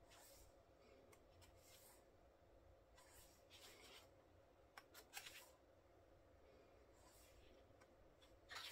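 Faint rustles of glossy photobook pages being turned by hand: several soft, brief swishes a second or more apart over near silence.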